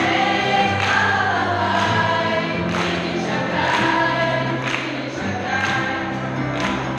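A mixed group of young voices singing together live as a choir, with instrumental backing and a sharp beat about once a second.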